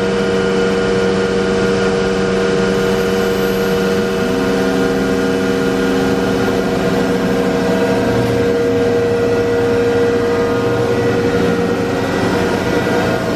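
Freedom Machine Tool Patriot CNC router running with its spindle and dust extraction on: a steady, loud mechanical hum with several held tones, and a further low tone joins about four seconds in.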